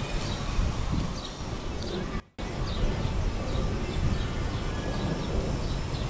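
Wind buffeting the microphone as a rough, gusty rumble, with small birds chirping repeatedly in the trees overhead. The sound cuts out briefly about two seconds in.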